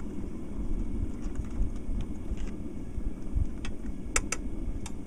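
A metal tool scraping and clinking inside a casting crucible as dross is scraped out of it, with a few sharp clinks in the second half, the loudest two close together just after four seconds. A steady low rumble runs underneath.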